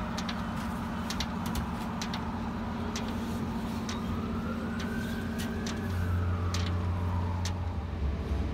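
Heavy construction machinery running with a steady low drone, with scattered sharp clicks. About halfway through a whine rises and then falls away. From about two-thirds of the way through the low drone grows louder.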